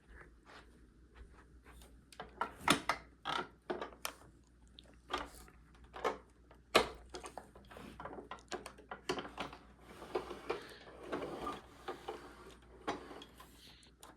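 Irregular clicks, knocks and rustling of something being handled, with a denser patch of rustling about two-thirds of the way through.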